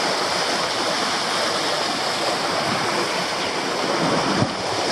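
The Arve River rushing over rock cascades: a steady wash of white water. A brief thump near the end.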